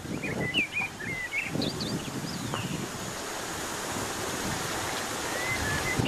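Steady rushing of stream water over rocks, mixed with wind buffeting the microphone. A few short high chirps sound over it in the first half and again near the end.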